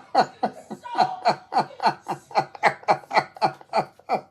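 A person laughing hard, in a quick run of about four short laughs a second, each one dropping in pitch.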